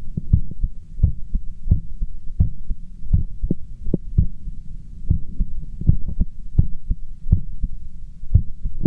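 A man's heartbeat heard through a stethoscope on his chest: regular low thumps, a little faster than one a second, the heart rate raised after exercise.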